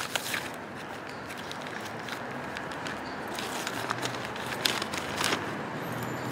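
Steady outdoor city background noise, with a few light clicks and rustles as a leather handbag is rummaged through and a sheet of paper is handled.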